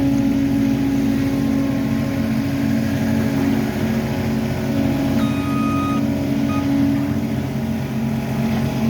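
Heavy diesel construction machinery running with a steady engine drone. About five seconds in, a reversing alarm beeps: one long tone, then a short one.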